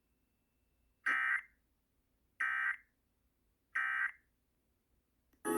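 Emergency Alert System end-of-message code: three short, identical bursts of SAME digital data tones, about 1.3 seconds apart, each a harsh buzzy screech.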